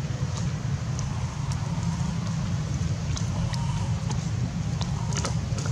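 Steady low outdoor rumble with a few faint, sharp high ticks scattered through it.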